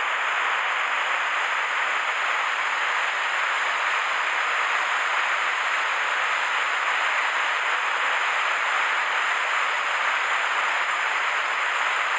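Steady rush of a waterfall pouring down a rock face into a mountain stream, an even unbroken roar of falling water.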